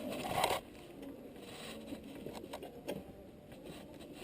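A short scraping rustle, then a few faint light clicks: hands and metal parts being handled while the exhaust bolt is fitted on a mini dirt bike.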